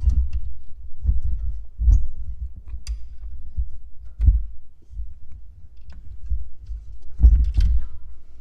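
Microphone handling noise: irregular low thumps and rumble as the camera is moved and repositioned, with a few light clicks.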